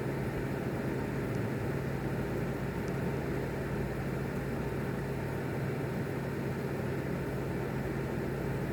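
A steady low hum over a constant rushing noise, with no sudden cracks or rumbles.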